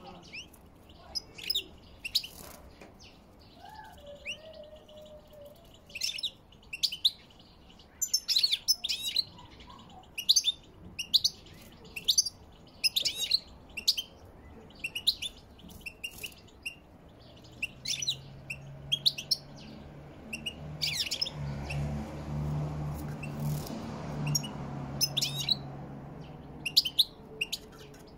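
European goldfinches calling from their cages: short, sharp chirps and twitters in bursts. In the last third a low steady hum swells up and fades beneath them.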